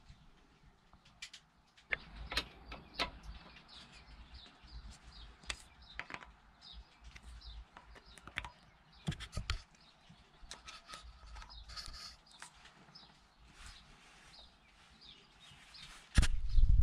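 Scattered small metallic clicks and taps of a screwdriver and screws as the brass cover plate is fastened onto a marine diesel's raw-water impeller pump. A loud bump near the end.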